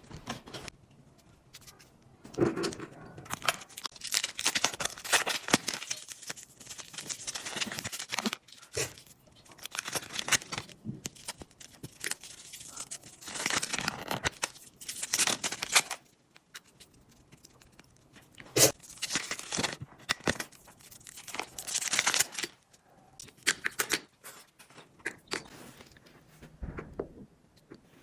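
Slime mixed with chewing gum being squeezed and stretched by hand: repeated bursts of sticky crackling and squelching, with short pauses between them.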